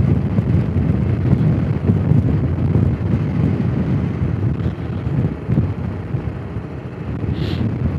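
Honda CRF250 Rally's single-cylinder engine running on the move, under wind noise on the microphone. The sound gradually gets quieter over the second half, with a brief hiss near the end.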